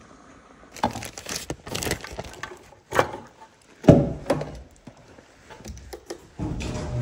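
A series of knocks and clunks from handling, the loudest a little before four seconds in as a truck door is opened. About six and a half seconds in, a garage door opener's motor starts with a steady low hum.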